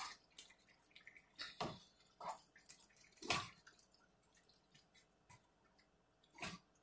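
Wooden spoon stirring thick tomato meat sauce in a pan: a handful of faint, wet, irregularly spaced sounds.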